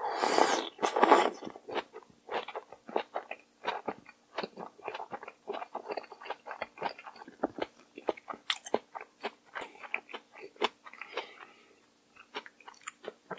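Close-miked eating of mulhoe, a cold raw fish soup with shredded vegetables and raw seafood: a loud slurp of a mouthful at the start, then steady wet chewing with many small crisp clicks, several a second.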